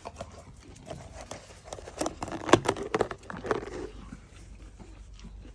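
Rustling with scattered light clicks, and a denser cluster of sharp clicks and taps about two to four seconds in.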